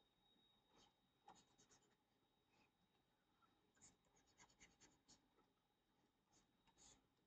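Faint ticking and scratching of a stylus on a drawing tablet while writing, in short clusters of quick taps a second or so long.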